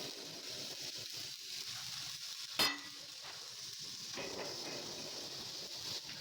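Steady crackling hiss of electric arc welding on steel, with a single sharp metallic clang about two and a half seconds in.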